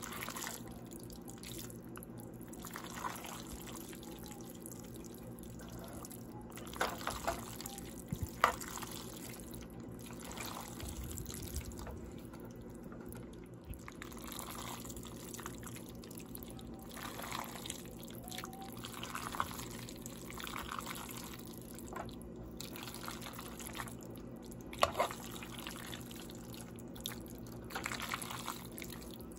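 Tongs tossing sauce-coated fettuccine with shrimp and chicken in a pot: soft, wet squishing and slapping of thick cream sauce, with a few sharp clicks of the tongs, the loudest about 8 seconds in and again near 25 seconds. A steady low hum runs underneath.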